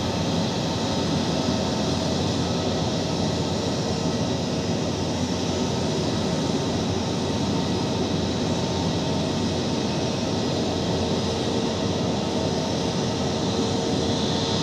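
Airbus A320's twin turbofan engines running at taxi power: a steady rumble and hiss with a high whine, the whine growing a little stronger near the end.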